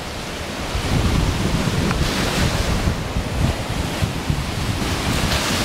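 Heavy storm surf breaking on the shore ahead of an approaching hurricane, with strong wind buffeting the microphone. The rush of breaking waves swells about two seconds in and again near the end.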